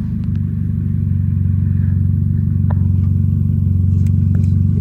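Loud car engine running steadily at low revs: a deep, even drone that grows a little louder about half a second in, with a few faint clicks over it.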